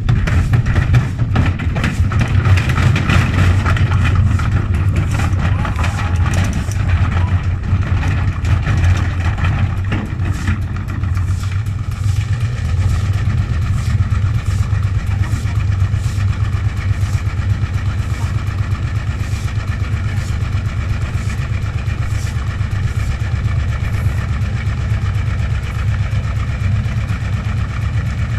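Gorenje washing machine running a hard spin off balance, a loud steady motor hum with repeated knocks from the drum. It starts abruptly and is roughest in the first few seconds.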